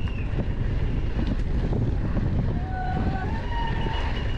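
Wind rushing over the microphone of a downhill mountain bike at speed, with rattling clicks from the bike on rough ground. A few thin high tones sound in the second half.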